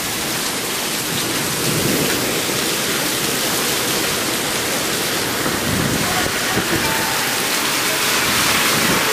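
Heavy rain pouring down in a severe thunderstorm as a steady, loud hiss that grows slightly louder, with gusty wind. Low swells come about two and six seconds in.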